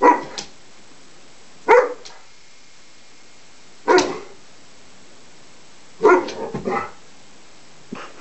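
Adult Greater Swiss Mountain Dog giving play barks at a reluctant puppy: single sharp barks about every two seconds, with a quick run of three about six seconds in.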